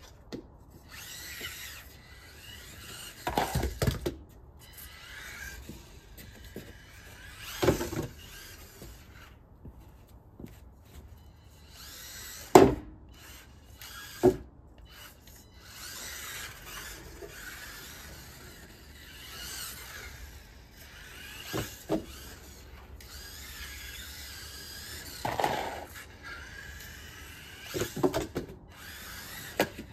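Losi Micro-B RC buggy's small electric motor whining up and down as it is driven about, with several sharp knocks on the wooden deck and ramps from jumps and crashes. The loudest knock comes about twelve and a half seconds in.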